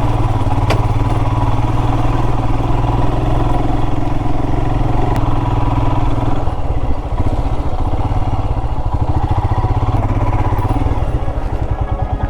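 Royal Enfield Himalayan's single-cylinder engine running as the motorcycle rides along; about halfway through the revs drop and the note turns into a slower, distinctly pulsing thump.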